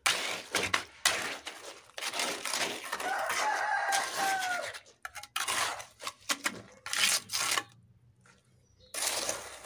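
Steel mason's trowel scraping and slapping wet concrete mix into a levelling strip, in repeated rough strokes with a short pause near the end. A rooster crows once, about three seconds in, a long call that drops in pitch at its end.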